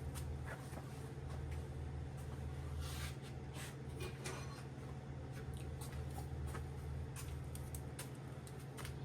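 Light, irregular metal clicks and handling noises from hand work on the engine block's main bearing caps and bolts, over a steady low hum.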